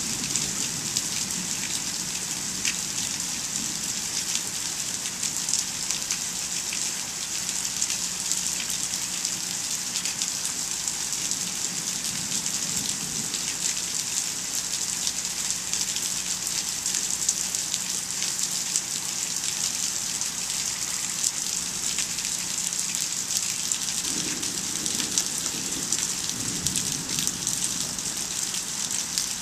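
Steady thunderstorm rain, an even hiss of rainfall thick with many sharp drop ticks.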